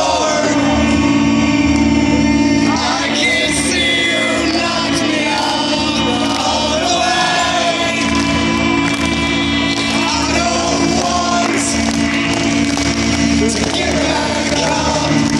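Pre-show intro music over a concert PA: a sustained low drone with a voice singing over it, crowd voices mixed in.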